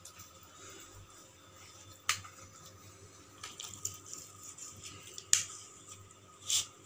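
A knife cutting through a slab of boiled wheat-flour dough on a plate, the blade clicking against the plate a few times, loudest about five seconds in.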